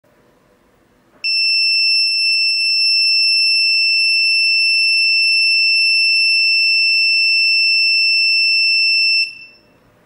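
Passive piezo buzzer on a DIY ESP32-C3 smoke detector sounding one steady, high-pitched alarm tone. It starts about a second in and cuts off about eight seconds later. The tone is the alarm that goes off while the MQ-3 gas sensor reads smoke.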